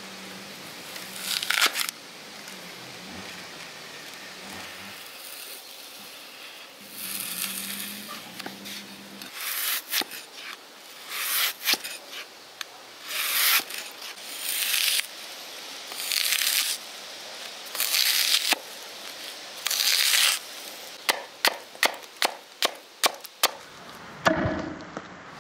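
A steel meat cleaver slicing through a crisp green apple on a wooden chopping block: a series of separate crunchy cuts, then a quick run of about ten chops in a row near the end.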